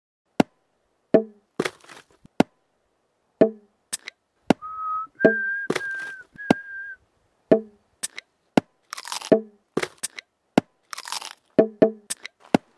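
A rapid, irregular string of sharp clicks and short pops cut to a stop-motion montage, with three short whistled notes about halfway through (one lower, then two higher) and brief hissing bursts later.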